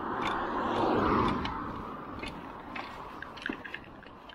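A car passing on the road, its tyre noise swelling to a peak about a second in and then fading away. Scattered light clicks and rattles from a bicycle ridden along the road shoulder.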